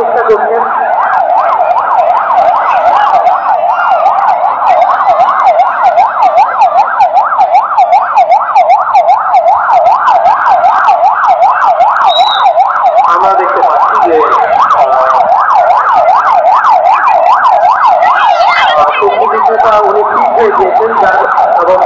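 Electronic siren in a fast yelp, its pitch sweeping up and down about three to four times a second without a break, sounding as the alarm in an earthquake and fire rescue drill.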